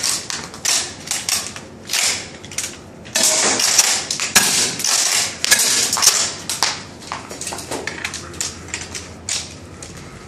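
Airsoft guns being fired and worked in quick succession: sharp pops and mechanical clacks, irregular, some in quick strings.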